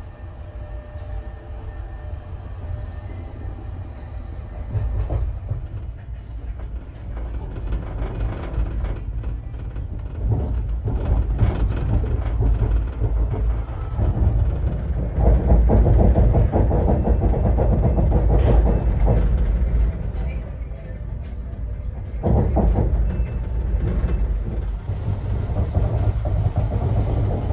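Running gear of a Tver-built double-deck sleeping car, heard from inside as the train moves: a steady low rumble with wheels clicking and knocking over rail joints. It grows louder about a third of the way in and eases for a moment before rising again.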